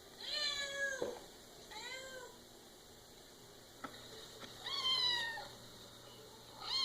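Cat meowing four times, each a short call rising then falling in pitch, the last starting near the end, with a single sharp click just before the third meow.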